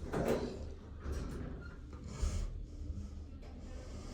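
A person sniffing and breathing close to the microphone, with a few short, soft noises.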